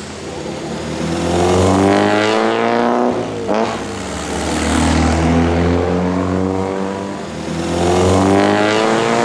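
Red classic Maserati sports-racing car's engine revving, its note climbing twice and falling back between, over a steady low hum.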